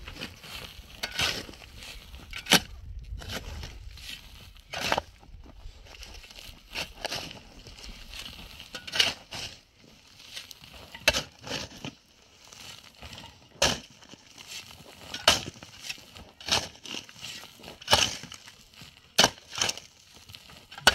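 Hand tools knocking and clinking in irregular sharp strikes, roughly one every second or so, typical of manual building work.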